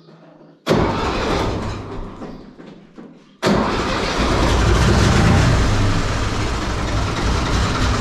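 Diesel tractor engine being started: a first go about a second in fades away, then about three and a half seconds in the engine starts and runs steadily.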